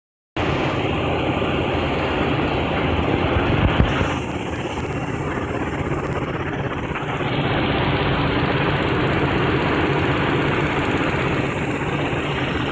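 Steady mechanical running noise of a cold-extrusion dog chew production line, its machinery humming and vibrating, with a couple of sharp knocks a little under four seconds in.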